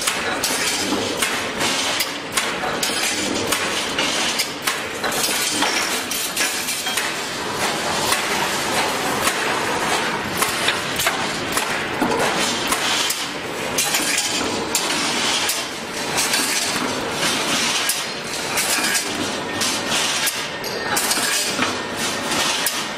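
Double-hopper welded wire mesh machine running, spot-welding cross wires onto line wires: a dense, continuous clatter of metal clanks and clinks.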